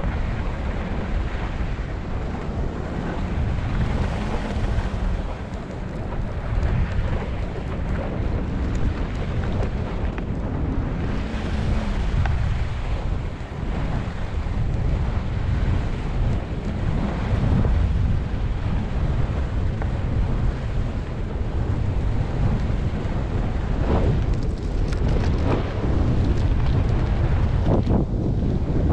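Wind buffeting the microphone of a camera carried by a moving skier, a loud, steady rumble with a few sharper strokes near the end.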